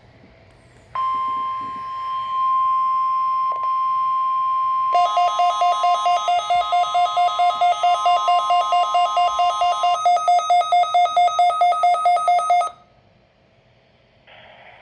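NOAA Weather Radio's 1050 Hz Weather Alert Tone, a steady single pitch, starting about a second in and sounding during the required weekly test. About five seconds in, the Midland WR120 weather radio's own alarm starts beeping fast over it, about three to four beeps a second. The beeping carries on after the broadcast tone stops and cuts off shortly before the end.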